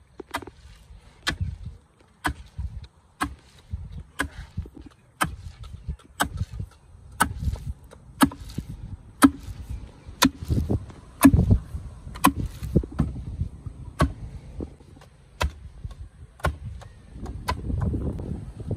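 Wooden pestle pounding grain in a wooden mortar, a sharp strike about once a second at a steady rhythm.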